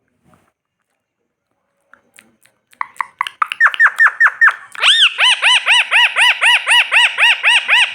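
Pet parrot giving a rapid string of short, arched screeching calls, about four a second, starting about three seconds in and turning louder and shriller about two seconds later.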